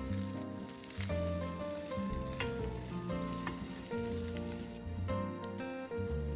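Egg fried rice sizzling in hot oil in a pan, with background music playing under it. The sizzle drops away for about a second near the end, then comes back.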